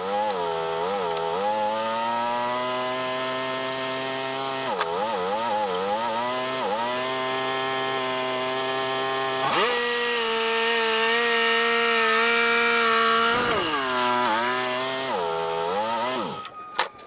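Wood-Mizer LT35 band sawmill running through a yellow pine log. Its engine dips in pitch again and again under the load of the cut, and holds a higher, steady pitch for a few seconds about ten seconds in. Near the end the pitch falls away and the sound drops off, and a sharp click follows.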